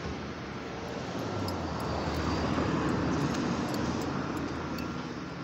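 A vehicle passing: a wide rushing noise that swells from about a second in, peaks in the middle and fades again, over a steady low hum.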